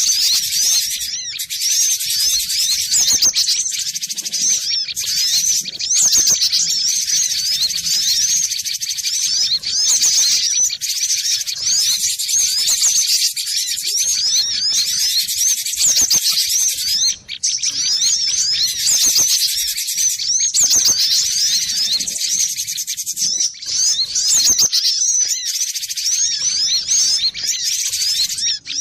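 Cinereous tit (glatik batu) song: rapid, high-pitched chirping and twittering that runs on with only brief pauses.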